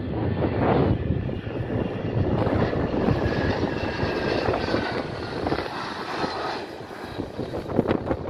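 Turbofan engines of a business jet on final approach, passing low overhead as a steady rumble with a faint whine in the middle, while wind buffets the microphone.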